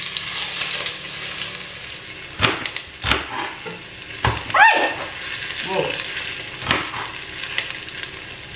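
Garlic sizzling in hot oil in a stainless steel pan, a steady hiss that fades slowly, the garlic on the point of burning. A knife strikes a cutting board several times as a red onion is sliced.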